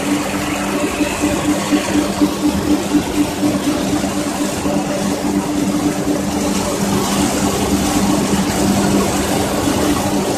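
Pet food production line machinery running: a steady electric-motor hum with two held tones under a constant noisy clatter of the conveyors and pellets, louder and more uneven in the first few seconds.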